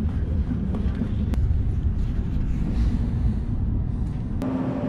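Steady low rumble inside a high-speed train carriage as the train runs, with a few light clicks and knocks. Near the end the rumble drops away and a steady hum comes in.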